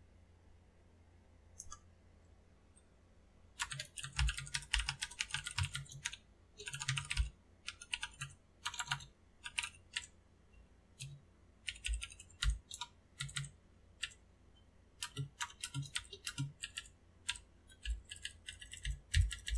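Typing on a computer keyboard: irregular bursts of rapid keystrokes with short pauses between them, starting about three and a half seconds in.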